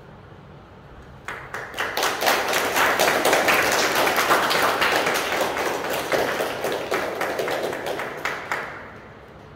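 An audience applauding, starting about a second in, building quickly to a steady clapping and fading out near the end.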